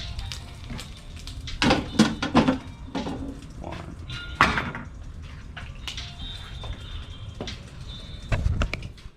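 Metal clanks and scrapes of a pizza peel against the charcoal pizza oven as the pizza is turned. The loudest run of knocks comes about two seconds in, another strike about four and a half seconds in, and a few more near the end.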